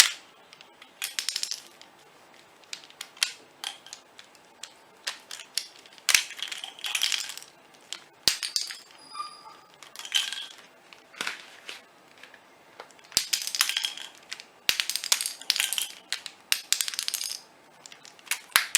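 Plastic pieces of a 3x3 Rubik's Cube being pried out one by one and dropped together, giving repeated bursts of clicking and clattering with short quiet gaps between.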